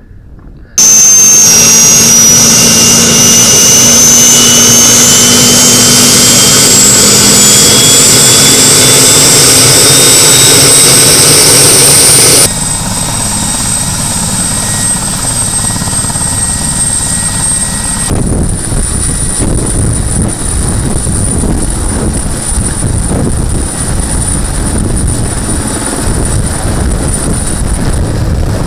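Military transport helicopter's twin turbine engines whining loudly, the high whine slowly rising in pitch as they spool up. From about two-thirds of the way in, the sound turns to the rougher, steadier noise of the rotor as the helicopter lifts off.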